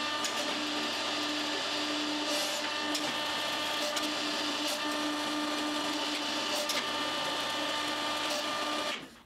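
Homemade hydraulic forging press running, its pump drive giving a steady mechanical hum with a few held tones, while the ram is worked down onto an adjustable stop; a few faint clicks along the way. It cuts off suddenly near the end.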